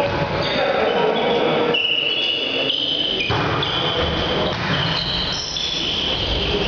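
Indoor volleyball game in an echoing sports hall, with a series of high squeaks of differing pitch over the general noise of play.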